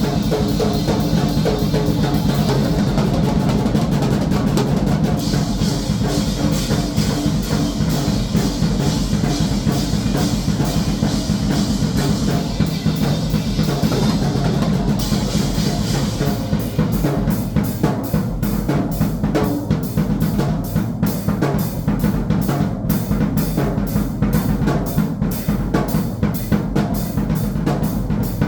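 Drum kit being played without a break: bass drum and snare under a wash of cymbals in the first half, then a busier stretch of rapid, closely spaced hits through the second half.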